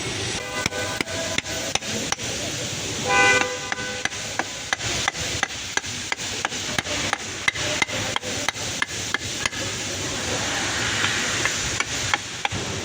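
A ratchet spanner clicking in quick, even strokes, about three a second, as bolts are undone on the steering column housing; the clicking stops near the end. A car horn sounds briefly about three seconds in.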